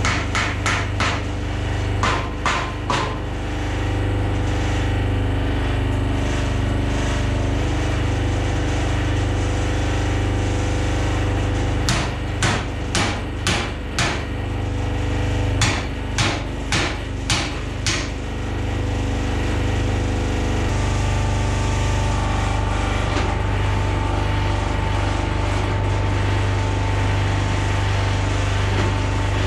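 The wool press's hydraulic power unit running with a steady hum, broken by quick runs of sharp hammer knocks on metal: a few at the start, a few about two seconds in, and two runs in the middle. About two-thirds of the way through, the running note changes and a higher steady whine comes in.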